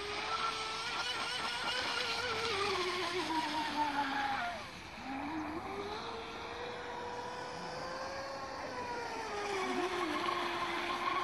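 Electric RC speedboat on a 6S battery running on the water: its motor whines steadily, the pitch rising and falling with the throttle, dipping sharply about four and a half seconds in before climbing back, over a steady hiss.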